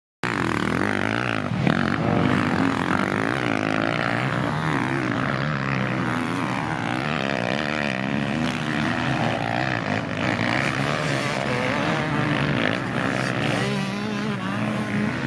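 Motocross dirt bike engines revving hard on the track, their pitch rising and falling through throttle and gear changes, several bikes overlapping.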